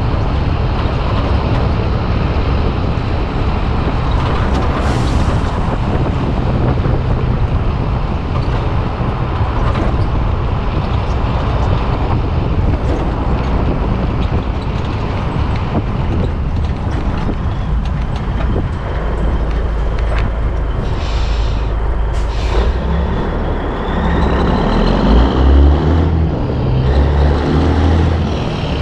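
Peterbilt 362 cabover semi-truck driving, with a steady low rumble of engine, tyres and wind. Two short air-brake hisses come about three quarters of the way through, and the rumble turns uneven near the end.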